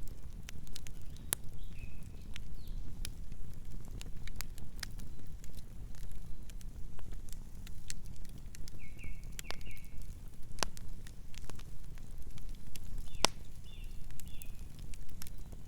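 Campfire of burning wood crackling: irregular sharp pops and snaps scattered over a low, steady rumble of the flames, with a few brief high chirps now and then.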